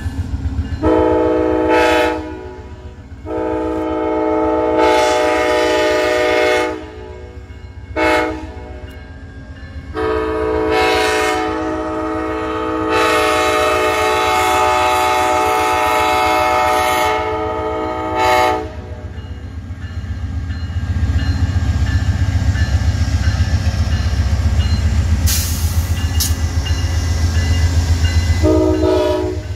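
Amtrak GE P42DC Genesis diesel locomotive sounding its horn in the grade-crossing pattern: two long blasts, a short one, then a long held blast. After that comes the heavy low rumble of its V16 diesel working hard as it passes close by, with a brief horn blast near the end.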